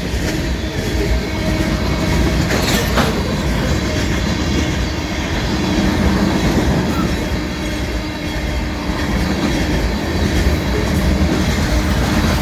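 Local freight train passing close by at about 70 miles per hour: a steady, loud rush of cars and wheels on the rails, with a brief sharp clank about three seconds in.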